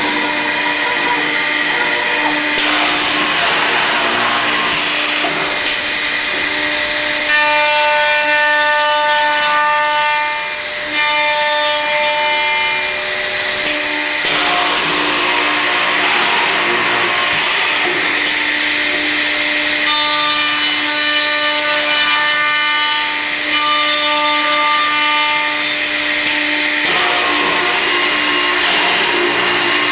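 Cup hinge boring and routing machine running, its spindles cutting wood with a steady, loud, noisy whir. A higher pitched whine rises over it twice for several seconds, about seven seconds in and again about twenty seconds in.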